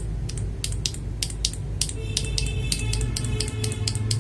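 Loose Gateron Milky Yellow linear mechanical keyboard switches being pressed and released by hand: a quick run of sharp clacks, about three or four a second.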